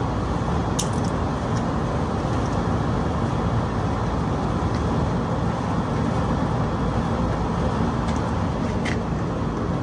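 Steady rushing background noise, strongest in the low range, with a few faint clicks about a second in and again near the end.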